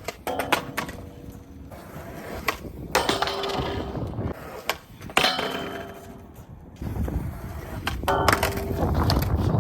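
Skateboard hitting and landing on pavement: sharp clacks in several clusters, some followed by a brief ringing of the board. Wind rumbles on the microphone in the second half.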